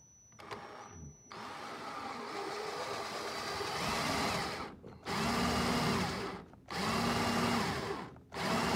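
Cordless drill boring holes in a car's firewall: one long run of about three seconds, then three shorter bursts, the motor's pitch rising as the trigger is pulled and falling as it is released. The drill is acting weird, which the owner puts down to its battery.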